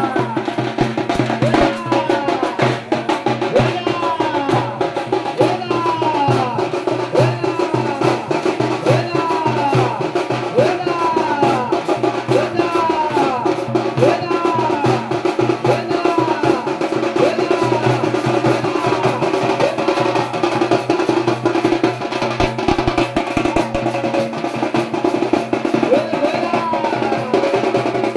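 Drum-heavy devotional music: fast, dense drumming under a melody of short falling notes repeated every second or so.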